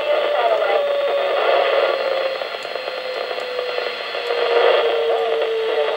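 ARISSat-1 satellite's FM downlink heard through a 2 m ham radio receiver: a hissy, fading signal with a steady tone that sinks slowly in pitch, the Doppler shift of the passing satellite. The signal dips weaker midway.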